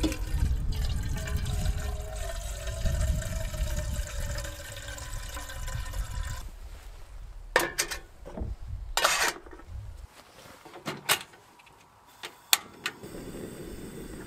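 Water running from a jerrycan's tap into a metal kettle for about six seconds, with a faint ringing tone in the pour. Then come a few sharp clicks and knocks and a short hiss as the kettle goes onto a gas stove and the burner is lit, and the burner's steady hiss starts near the end.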